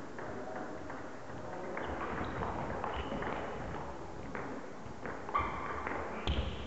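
Table tennis rally: the ball clicking off the bats and the table in quick succession. A couple of louder thumps and short squeaks come near the end.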